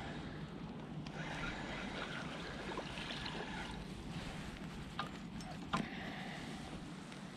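Water sloshing and lapping around someone wading waist-deep in a lake, with a couple of light clicks about five and six seconds in.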